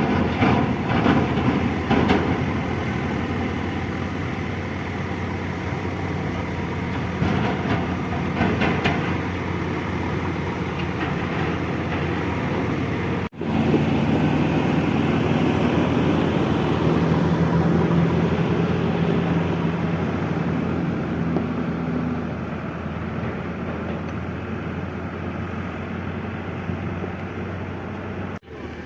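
Diesel engine of a JCB 3DX backhoe loader running under working load, with some clanking early on. The sound breaks off abruptly twice, at cuts in the footage.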